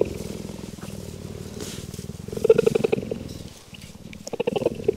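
Female cheetah's pulsed purring call to her young cubs, swelling louder twice, about two and a half and four and a half seconds in: a mother calling her cubs to come to her, a sound she never made before having cubs.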